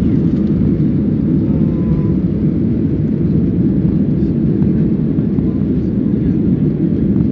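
Boeing 737-300's CFM56-3 turbofan engines at takeoff thrust, heard inside the passenger cabin as a steady, loud, deep noise as the aircraft lifts off the runway and climbs.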